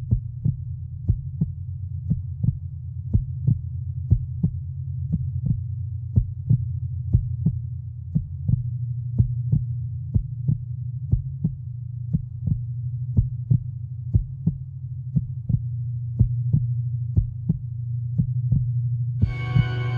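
Suspense score: a steady low droning hum under an even, sharp pulse about one and a half beats a second, like a heartbeat. Just before the end, a higher sustained chord of synth tones comes in over it.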